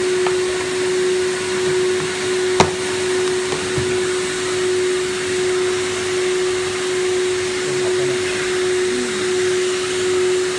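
Vacuum blower running steadily, a rush of air with one held note under it, and a single sharp click about two and a half seconds in.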